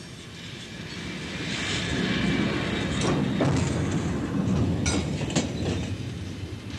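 Uncoupled freight wagon rolling freely down the hump yard's track over the points, its steel wheels running on the rails and growing louder over the first two seconds as it nears. Its axles clack over the rail joints in two quick pairs, about three seconds in and again about five seconds in.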